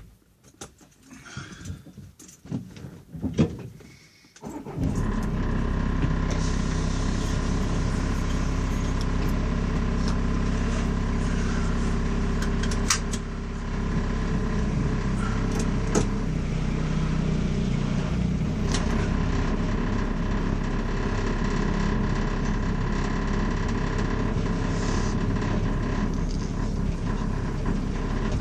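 Inside a car: a few faint clicks and knocks, then about five seconds in a steady car engine and running noise comes in suddenly and carries on evenly, with an odd sharp click now and then.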